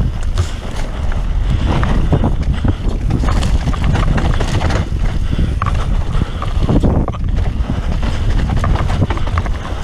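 Wind buffeting the camera microphone of a mountain bike ridden fast downhill, with the tyres rolling over damp dirt singletrack. Frequent short knocks and rattles come from the bike over bumps.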